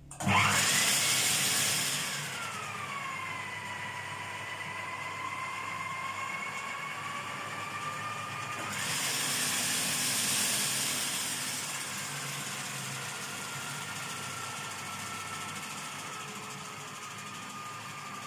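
Electric food processor motor switching on suddenly and running, beating whole eggs into a froth. Its whine climbs at switch-on, then drops and settles lower as it takes the load, steps up briefly about nine seconds in, and slowly sags toward the end.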